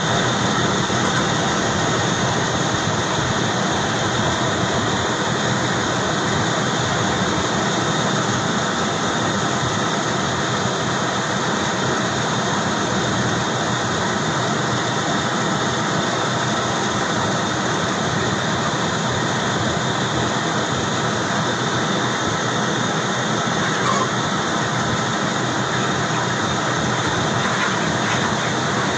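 Steady loud whir of the large ventilation fans in an enclosed broiler control shed, an even unbroken noise with no rise or fall.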